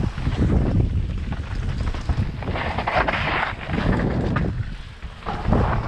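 Wind buffeting the microphone of a camera on a mountain bike riding fast down a loose dirt and gravel trail, with the tyres crunching over stones and the bike rattling over bumps. The noise drops briefly about five seconds in.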